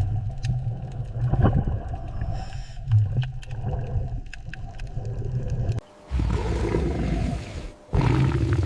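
Low rumbling sound of a sea turtle with scattered clicks, cut off abruptly about six seconds in. A similar low rumble follows twice.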